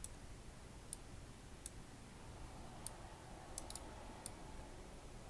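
Faint computer mouse clicking: about eight short, sharp clicks at uneven intervals, with a quick cluster of two or three near the middle.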